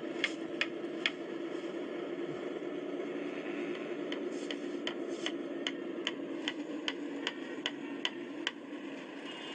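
Sharp, evenly spaced knocks inside a running car, about two and a half a second, over the steady hum of the car. The knocks pause for a few seconds after the first second, then resume until near the end. Their cause is unknown; the driver is asking what they are.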